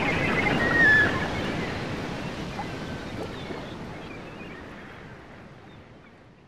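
Sea waves washing in a steady surf-like rush, with a few short chirps in the first second, the loudest about a second in. The sound fades out steadily to silence.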